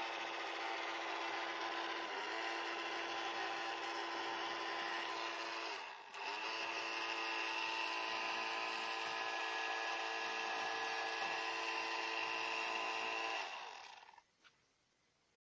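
Small electric motor and fan salvaged from a hair dryer, running a homemade vacuum cleaner with a steady whine. It dips briefly and picks up again about six seconds in, then winds down and stops near the end.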